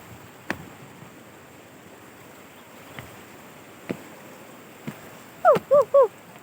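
A person's voice giving three quick, short exclamations near the end, each rising then falling in pitch. Before them there are a few isolated sharp clicks or knocks over a steady outdoor hiss.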